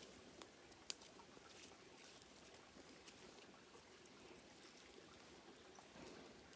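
Near silence, with a few faint light clicks and one sharp click about a second in.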